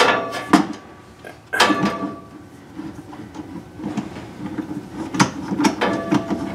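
Sharp clicks and knocks of a metal wood clamp being handled and set against the top edge of a mahogany tool box, then a rough scraping rattle as it is worked against the wood.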